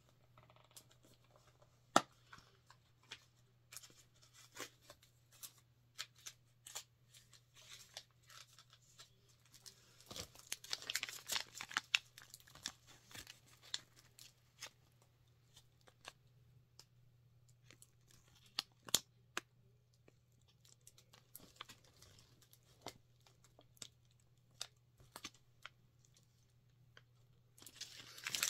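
Thin plastic packaging bag crinkling and tearing as it is handled and opened, with scattered sharp clicks and a busier stretch of crinkling about ten seconds in. A faint steady low hum runs underneath.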